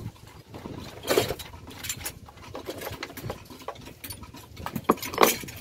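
Scattered clicks, scrapes and knocks of a wrench on the 12 mm bolt of a car battery's lower hold-down bracket, being loosened so the battery can come out. The sharpest knocks come in a quick cluster near the end.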